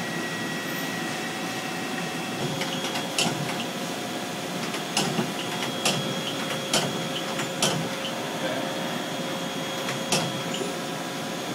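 DMG Gildemeister CTX400 Series 2 CNC lathe running: a steady machine hum with a few steady high tones. About six sharp clicks or knocks fall at irregular intervals through the middle.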